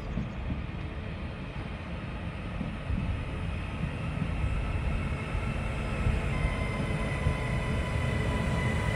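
Two coupled Class 331 electric multiple units arriving at a station platform, their low rumble growing steadily louder as they approach. A steady high whine sets in about six seconds in.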